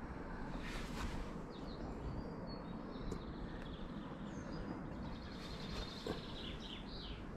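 Small birds chirping and trilling over a steady low background rumble, with a quick run of repeated notes about five seconds in.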